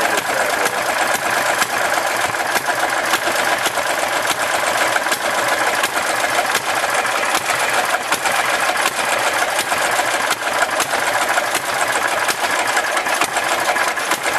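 Kohler engine of a Cub Cadet garden pulling tractor running steadily at idle with a rapid, even mechanical clatter, its carburetor idle being screwed down as low as it will go.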